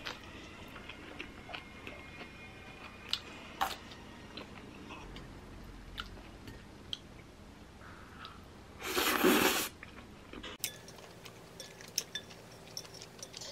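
Close-up eating sounds: quiet chewing of noodles, with wooden chopsticks and a wooden spoon clicking and scraping on a ceramic plate. A little over two-thirds of the way in comes a loud breathy noise about a second long.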